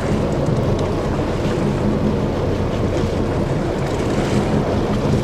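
Fishing boat's engine running with a steady low hum, under wind noise on the microphone and the wash of sea water.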